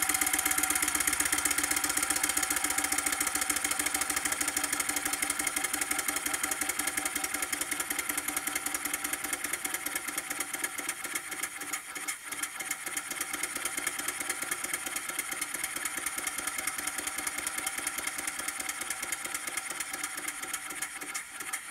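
PM Research No. 3 model steam engine running fast with a rapid, even beat, belt-driving a small generator. It gradually slows and gets quieter.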